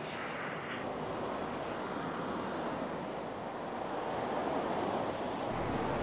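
Steady rush of heavy highway traffic passing below, heard through a DJI Mic 2 lavalier with its noise reduction on. About half a second before the end the recording switches to the Rode Wireless Pro, and the traffic rumble comes through fuller in the low end.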